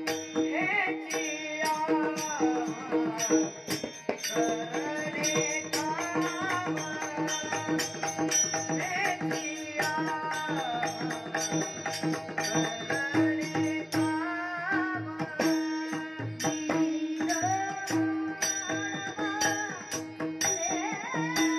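Warkari devotional bhajan: a boy sings a flowing melody to harmonium, with a steady drone beneath. Taal hand cymbals and a pakhawaj barrel drum keep a quick, steady beat of sharp strokes.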